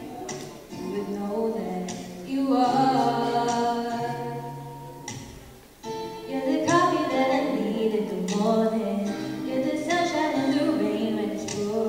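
A girl singing a song through a handheld microphone and sound system, holding long notes. She breaks off briefly about five and a half seconds in, then comes back in louder.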